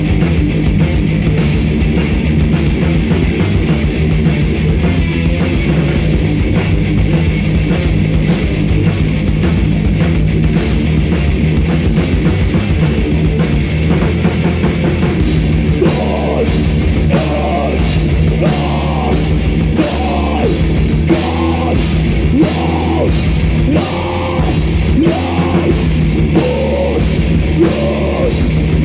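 A heavy metal band playing live, loud and dense, with distorted guitars, bass and a drum kit. From about halfway through, a repeating melodic phrase rises above the riffing.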